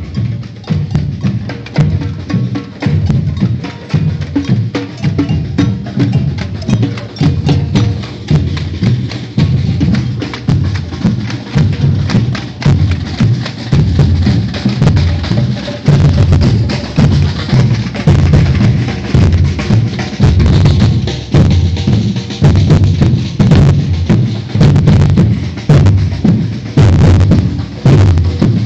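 Batucada percussion ensemble playing a driving samba rhythm: deep bass drums under fast, sharp higher drum and click strokes. It gets louder about halfway through.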